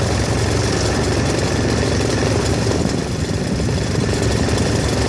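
A steady, low engine drone, as of an engine idling, holding an even level throughout.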